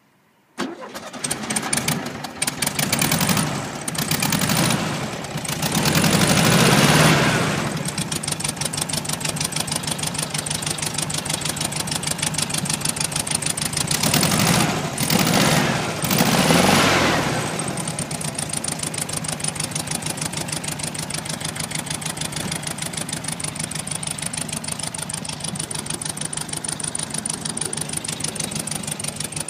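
1970 Volkswagen Beetle's air-cooled flat-four engine starting about half a second in. It is revved several times, then settles into a steady idle with an even, fast pulse.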